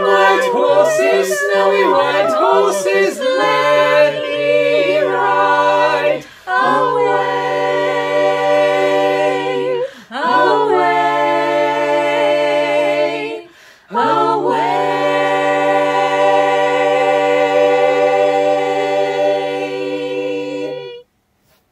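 Small mixed choir singing a cappella in sustained harmony, in four phrases. The last chord is held for about seven seconds and then cuts off.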